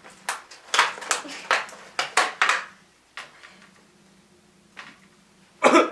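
Clear plastic clamshell food container being handled and opened, a quick series of sharp crinkles and snaps over the first two and a half seconds, then a few faint clicks. A short loud burst comes just before the end.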